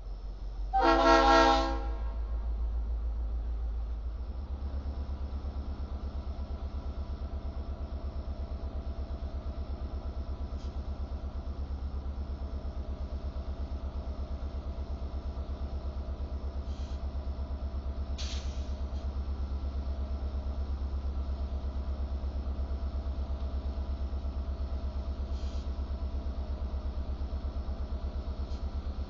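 EMD GP38-2 diesel-electric locomotive sounding one short horn blast about a second in, then its 16-cylinder diesel engine running with a steady low throb as it creeps along during switching.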